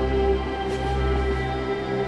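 Music: a dense drone of many held tones sustained together, steady throughout.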